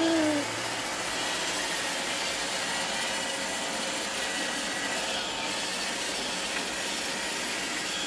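iRobot Roomba robot vacuum running across carpet: a steady whir of its suction motor and spinning brushes.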